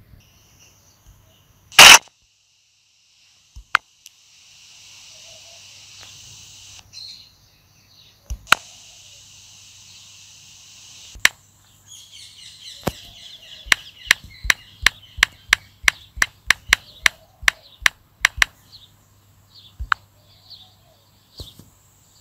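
A smartphone's camera shutter clicks once about two seconds in, the loudest sound. Later come a few single taps and then a quick run of about sixteen taps, roughly three a second, typing on the phone's on-screen keyboard, over a faint hiss.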